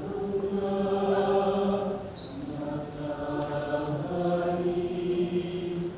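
Mixed choir of men and women singing slow, held chords, each held about two seconds before the harmony moves.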